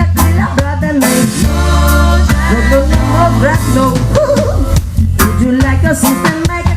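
Live band playing a reggae tune: a heavy, steady bass line and drums under a bending lead melody.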